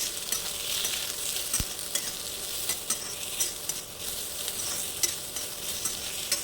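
Chopped onion, garlic and ginger sizzling as they fry in hot oil in a pan, with a steady hiss and frequent short clicks of a spoon stirring against the pan.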